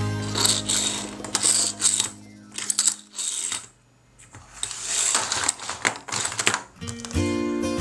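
Hollow plastic toy egg halves and a small toy car clicking and clattering on a hard table as they are handled, with quick light taps. Background music plays under it, dropping out around the middle and coming back near the end.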